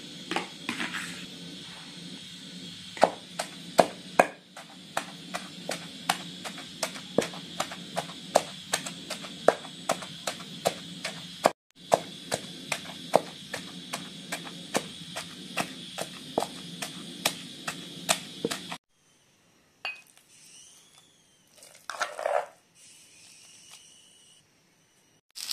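Wooden pestle pounding boiled spinach in a heavy stone mortar, a steady run of dull knocks about two a second. The pounding stops about three-quarters of the way through, and a few quieter spoon scrapes follow as the mash is scooped out.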